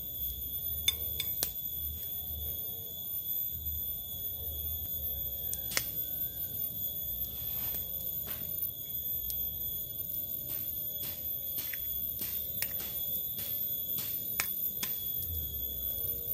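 Utensil clicking and tapping against a bowl while a dough of flour, salt and eggs is mixed: a few taps at first, then a quicker, irregular run from about halfway. A steady high-pitched whine sits under it.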